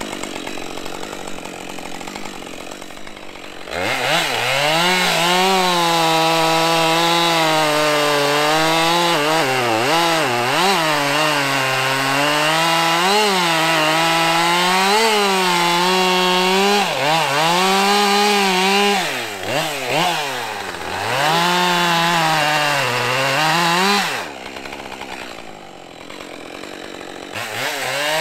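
Two-stroke chainsaw idling, then opened up to full throttle about four seconds in to buck a downed tree trunk into log lengths. Its pitch dips again and again as the chain bogs in the cut and then recovers. It drops back to idle near the end and revs again just before the end.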